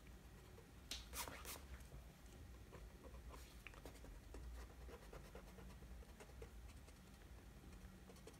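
Faint scratching of a handheld drawing tool on sketchbook paper, with a brief louder rustle about a second in.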